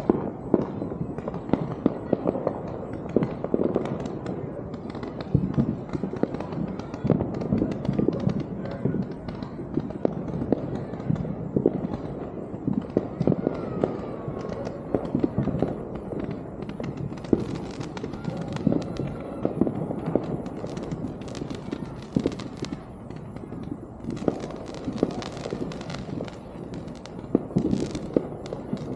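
Fireworks going off in a rapid, irregular run of bangs and crackles that never lets up.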